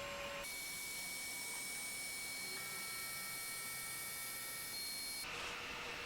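Laser engraving machine running: a steady low hiss with several faint, thin whining tones. The sound brightens, with new tones, about half a second in, and drops back about five seconds in.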